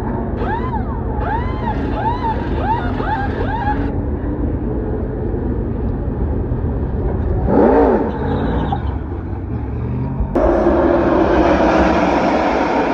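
Pit-road air impact wrench whirring in about eight quick up-and-down bursts on the lug nuts during a tire change, over the steady rumble of race truck engines. Near the middle a single brief engine rev rises and falls. About ten seconds in, the loud sound of the pack of NASCAR trucks' V8 engines running past on the track starts suddenly.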